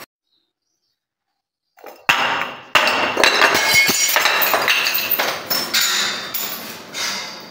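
After about two seconds of silence, a bead-filled glass bottle falls down marble steps: hard knocks on the stone, then glass breaking with a long spill of clinking shards and beads that fades near the end.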